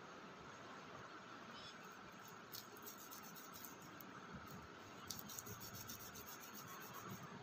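Faint scratching and crumbling of hands working loose soil into wet clay on a wooden board. Short clusters of light scratches come a couple of seconds in and again from about five seconds, over a low steady hiss.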